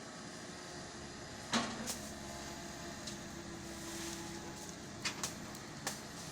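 Komatsu hydraulic excavator's diesel engine running steadily, with a short steady whine about halfway through. Sharp knocks cut through it: the loudest about one and a half seconds in, and several smaller ones near the end.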